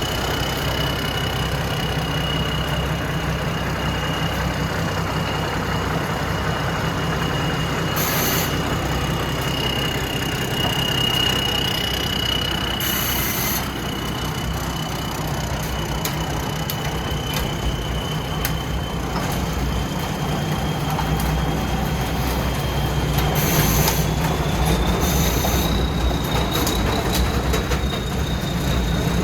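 Tracked combine harvester running steadily, with a low engine rumble and a constant high whine that steps up slightly in pitch late on. A few short hissing bursts break in.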